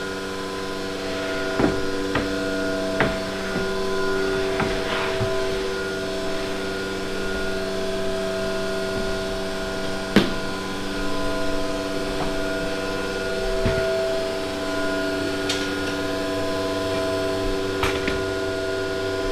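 Sheets of plywood knocking and sliding against a CNC router's table as they are loaded and pushed into place, about half a dozen sharp knocks with the loudest about ten seconds in. Under them runs a steady machine hum made of several held tones.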